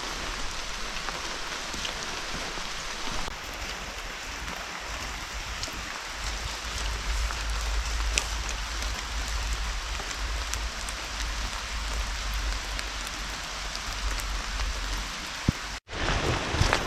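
Steady rain falling through the woods, an even hiss with scattered single drops ticking. A low rumble on the microphone runs through the middle, and the sound cuts out briefly near the end.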